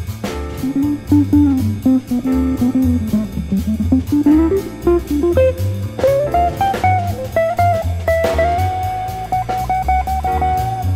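Instrumental band music: an electric guitar plays a lead line over bass and drum kit. The line works upward in pitch and then holds one long high note near the end.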